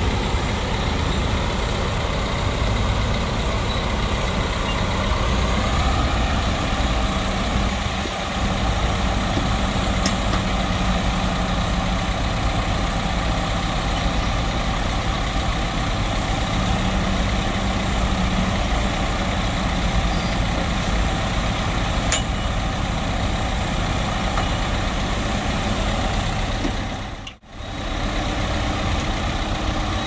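Diesel engine of a small Caterpillar crawler bulldozer running steadily as the dozer pushes dirt, with a brief dropout near the end.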